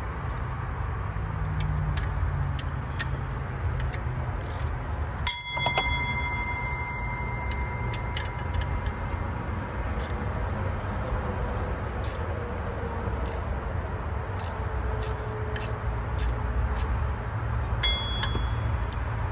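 A socket ratchet clicking in separate strokes through the second half as bolts on the new water pump are run in. About five seconds in, metal strikes metal with a sharp clink that rings on for a few seconds, and a shorter ring follows near the end. A steady low hum runs underneath.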